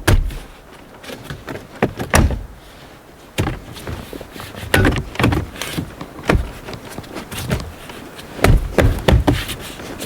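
Plastic pieces of a car's gear shifter assembly being handled and pushed into place: a series of sharp clicks and knocks, some in quick clusters.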